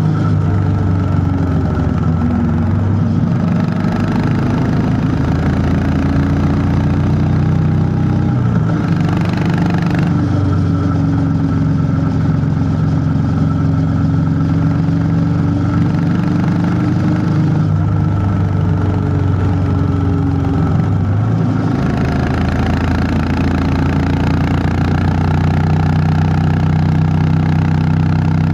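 Honda CB350 H'ness's air-cooled single-cylinder engine running under way. Its low, steady thump rises and falls in pitch several times as the speed and gears change.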